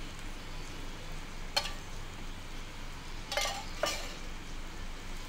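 Steel cups and containers clinking at a griddle: one sharp clink about a second and a half in, then two close together about two seconds later. Under them is a steady sizzle of parottas frying on a flat iron tawa.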